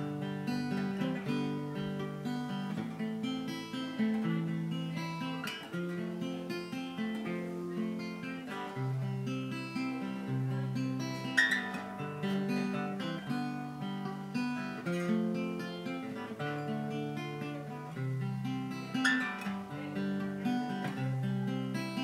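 1955 Rodebald Hoyer Samba guitar played unplugged, heard acoustically: chords strummed and picked in a steady rhythm, changing about once a second.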